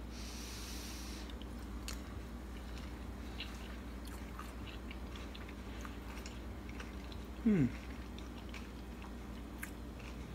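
A person chewing a mouthful of cassava leaf stew and cabbage rice, with faint small mouth clicks over a steady low hum. About seven seconds in comes one short, falling "mmm".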